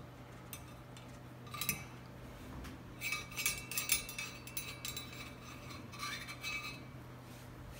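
Steel cleaning rod clinking and scraping against a Mossberg 590A1 shotgun barrel as a bore mop is run through the bore. A few light clinks, then a busier metallic rattle with a short ringing tone about three seconds in, and more clinks near the end.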